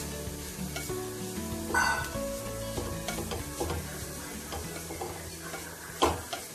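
A wooden spatula stirs grated cabbage and carrot frying in oil in a pan, sizzling softly, with louder scrapes against the pan about two seconds in and again near the end.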